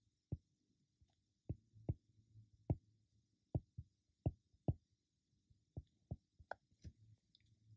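Stylus tapping on a tablet surface while handwriting an equation: about a dozen faint, short, sharp taps at uneven intervals, over a faint steady low hum.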